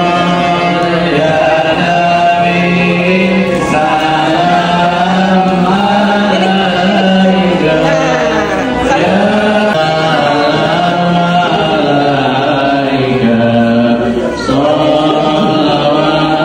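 Islamic devotional chanting by men's voices, led by one man singing into a microphone, a slow melody with long held notes.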